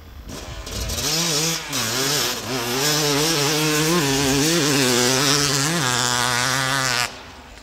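Vintage moped's small two-stroke engine running hard at high revs, its pitch wavering up and down as the revs rise and fall. It builds up about a second in and cuts off suddenly near the end.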